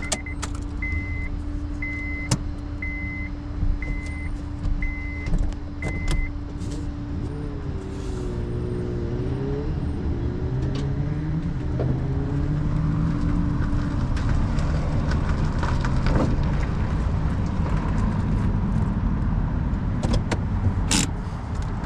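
Flatbed tow truck's backup alarm beeping about once a second for six seconds, then its engine revving up and down as it manoeuvres and pulls away, settling into steady running that grows slowly louder.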